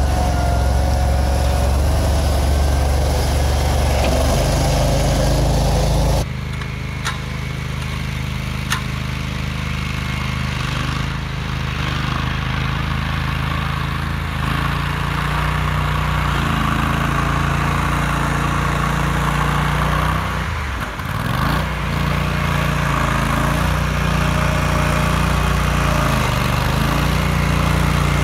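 Argo 8x8 amphibious ATV's engine running steadily as it drives through flood water, heard close up at first and from farther away after about six seconds. About two-thirds of the way through, the revs dip briefly and pick up again.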